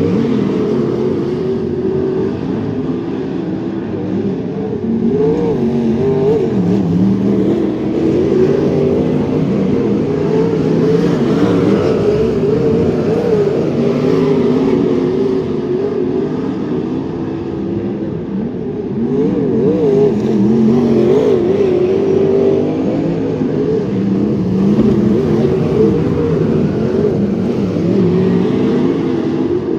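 Several wingless sprint cars' V8 engines on hot laps, their pitch rising and falling continuously as they circle the track.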